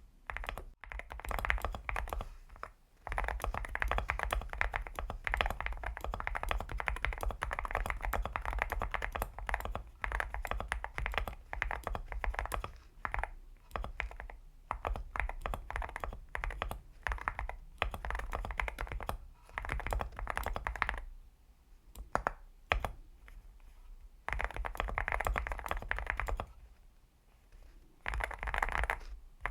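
Typing on a Leobog Hi75 aluminum mechanical keyboard fitted with Akko Rosewood switches: quick, continuous keystrokes. The typing thins to scattered presses about two-thirds of the way through, pauses briefly near the end, then picks up again.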